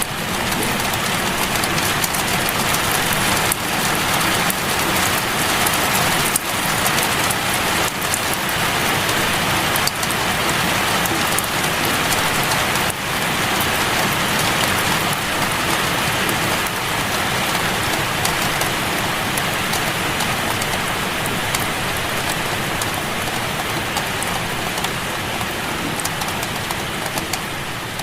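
Steady heavy rain: a dense, even hiss with many small drop ticks, easing slightly in level near the end.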